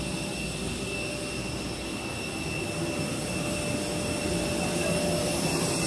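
Steady jet turbine noise from an airliner parked at the gate: a thin high whine over a broad, even rumble.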